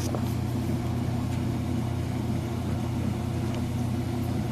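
A steady low mechanical hum, like a motor running, with no change in pitch or level.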